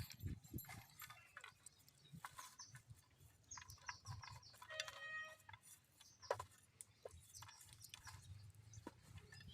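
Quiet background with scattered faint clicks and knocks, and a few brief animal calls about halfway through.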